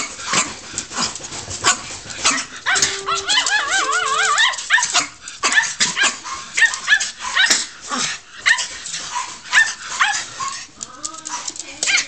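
Miniature pinschers barking and yipping in many sharp short bursts, with high wavering whines between. About three seconds in, a few short steady electronic tones sound, stepping up in pitch, from the iRobot Roomba.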